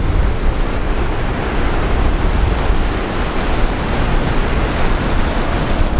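Steady surf noise with wind buffeting the microphone.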